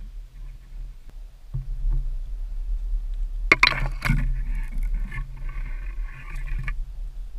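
Low wind rumble and handling noise on a handheld outdoor camera's microphone, with a sharp click about three and a half seconds in followed by a few seconds of scratchy rustling that stops suddenly near the end.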